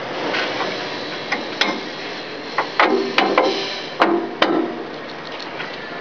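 Steel knocks and clanks from a backhoe quick coupler's spring-loaded locking pin and latch being worked by hand: about six sharp metal clacks with a brief ring, bunched in the middle, over steady background noise.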